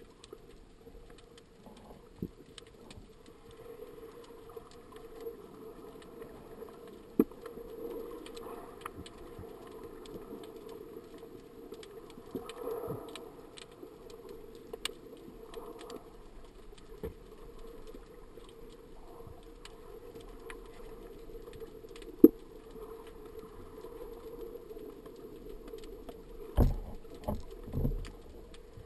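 Underwater ambience picked up by a camera in its housing: a steady low hum with scattered sharp clicks, and a few heavy thumps near the end.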